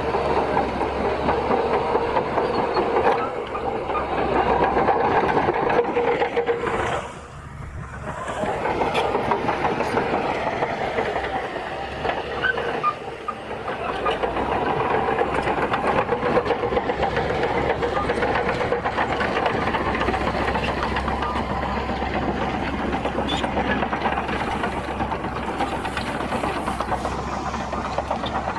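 Crawler bulldozer's diesel engine running under load with its steel tracks clattering, easing off briefly about seven seconds in and again about thirteen seconds in.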